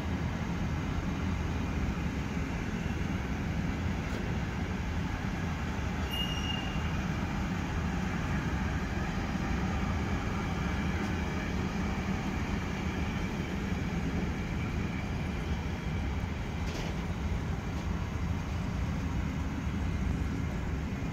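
Container wagons of a freight train rolling past: a steady rumble of steel wheels on the rails, with a short high squeal about six seconds in.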